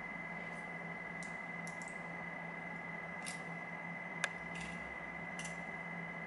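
Lock pick and tension tool working the pins inside a lock: faint scrapes and light ticks, with one sharp click about four seconds in. A steady hum with a faint high tone runs underneath.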